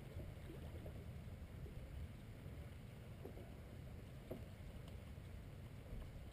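Faint, steady low rumble of a small boat sitting on the water, with water against the hull and wind on the microphone.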